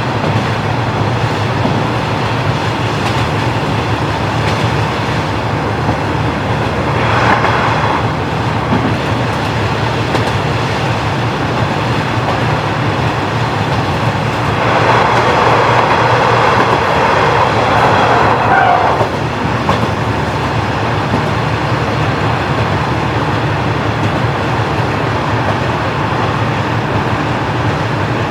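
JNR KiHa 40-series diesel railcar with its original engine running along the line, a steady low engine drone under wheel and track noise. A louder rushing noise swells for about four seconds past the middle, with a shorter one about seven seconds in.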